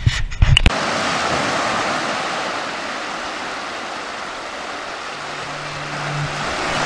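A few sharp knocks in the first second, then shallow sea water washing over wet sand as a steady rushing hiss.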